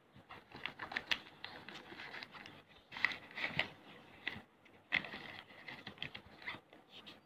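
Paper documents and a soft fabric carrying case being handled: irregular rustling with scattered small taps and clicks.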